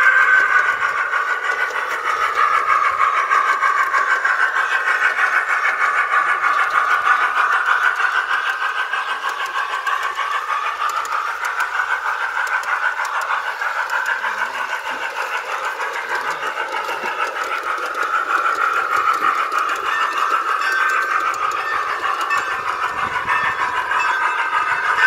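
Locomotive running sounds played through a poor small speaker in a G-scale model train: thin and tinny, almost all midrange with no bass, and steady throughout.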